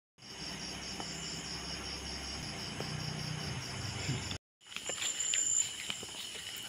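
Night insects chirping: a high, evenly pulsing trill for about four seconds. After a brief dropout comes a steadier mix of high insect calls with a few faint ticks.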